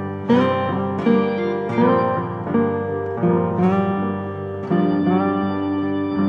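Background music: plucked guitar and keyboard notes with a steady, even rhythm.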